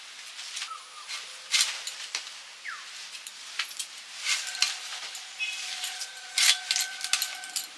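Irregular small clicks and scrapes of hands at work close by: small river fish being cleaned and red amaranth stalks being stripped and trimmed. A faint steady tone sounds in the background for about three seconds past the middle.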